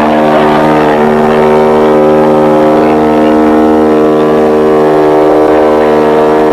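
Ship's horn of the MS Achille Lauro sounding one long, steady blast.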